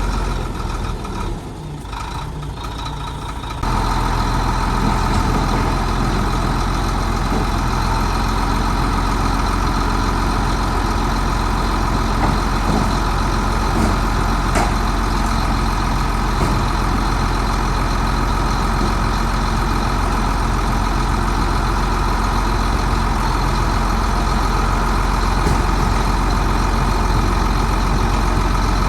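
Heavy diesel engine of earthmoving machinery running steadily. It drops away for a couple of seconds near the start, then comes back abruptly.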